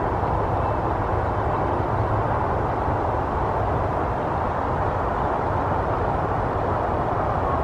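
Steady, unbroken rumble of distant road traffic.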